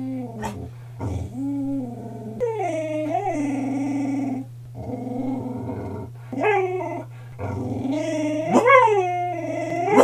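A dog 'talking': about six drawn-out, growly howl-whines that rise and fall in pitch, separated by short breaks. The loudest is a rising wail near the end.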